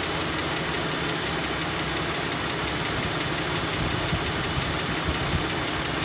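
2013 Jeep Grand Cherokee's 3.6L Pentastar V6 idling with a rapid, even ticking from the top of the engine. It is the telltale tick of a bad rocker arm: its roller bearing has failed, so the camshaft hits the metal sides of the rocker arm instead of rolling over the bearing.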